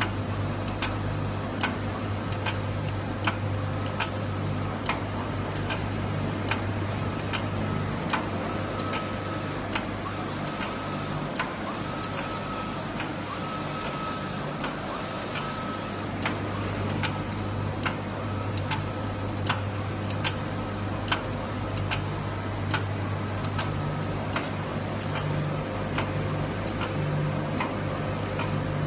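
Wide-format textile printer running while it prints fabric: a steady mechanical hum with a regular click a little more than once a second, and a faint whine that comes and goes through the middle.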